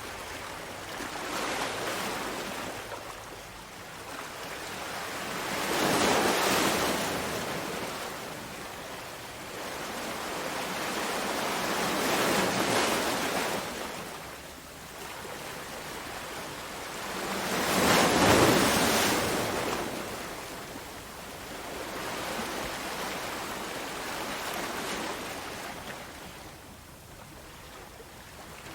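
Ocean waves breaking and washing ashore, surging and receding about every six seconds. The wave about two-thirds of the way through is the loudest.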